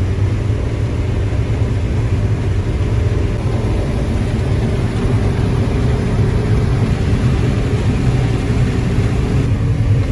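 Combine harvester running steadily while harvesting corn, heard from inside the cab as a constant low engine drone.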